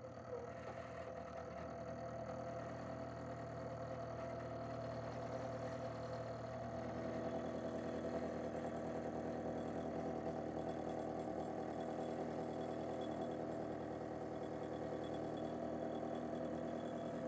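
Milling machine running at low speed, its cutter passing across a steel sledgehammer head in a shallow 5-thou cut; a steady machine hum that thickens about seven seconds in. The cutter is barely biting: the hammer face proves too hard to cut.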